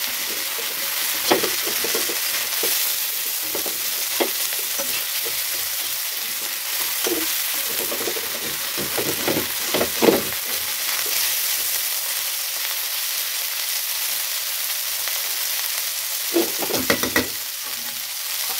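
Prawns frying in hot oil in a pan, nearly done: a steady sizzle throughout. A utensil stirring them scrapes and knocks against the pan now and then, with a quick cluster of knocks near the end.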